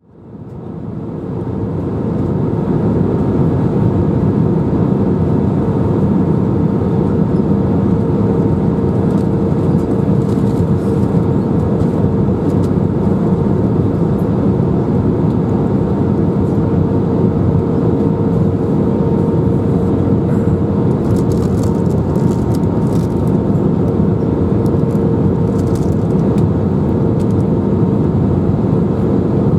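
Steady engine and airflow roar heard inside the cabin of an Airbus A319 airliner in flight, with a constant hum running through it; it fades in over the first two seconds and then holds level.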